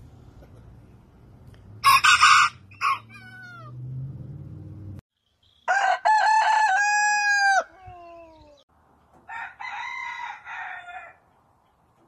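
Roosters crowing: three separate cock-a-doodle-doo calls from different birds, one about two seconds in, a longer one in the middle ending in falling notes, and a quieter one near the end.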